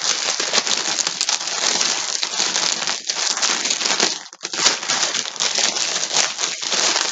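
Yarn packaging being handled, crinkling and rustling almost without pause, with a short break about four seconds in.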